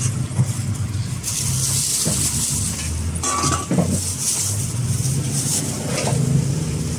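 Thin plastic bags rustling as fish is bagged, with a single metallic clink of a steel tray about three seconds in, over a steady low engine hum.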